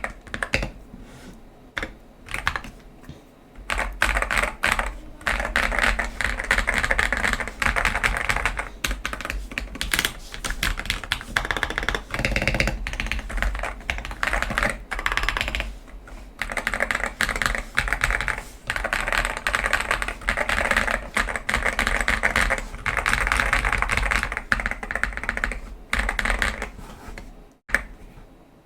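Fast typing on an Akko 5075S mechanical keyboard with Akko Cream Yellow Pro linear switches and XDA-profile PBT keycaps, modded with tape, PE foam and polyfill. Dense runs of keystrokes with a few brief pauses, thinning out and stopping near the end.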